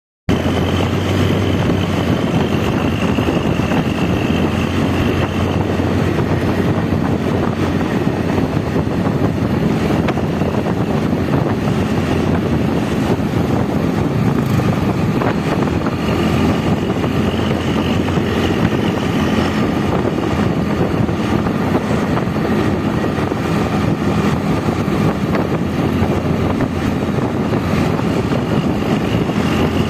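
Hino bus diesel engine running steadily, with a low, even snoring drone.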